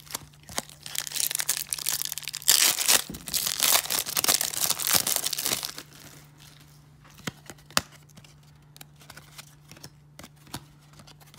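Wrapper of a 1994 Topps baseball card pack being torn open and crinkled, a dense crackling for about five seconds. After that come soft, scattered clicks of the cards being handled.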